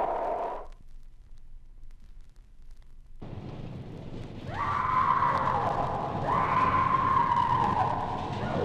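Recorded horror sound effect. A wailing tone dies away, and after a short gap a low rumbling noise starts. A high whine then rises in twice, holds, and falls away near the end.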